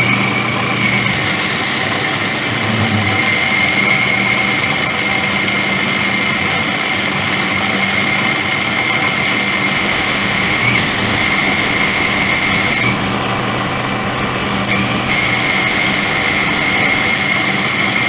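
Metalworking machine tool running steadily as its cutter bores a hole in a metal part, chips clearing from the cut, with a steady high whine that falters briefly a few times in the second half.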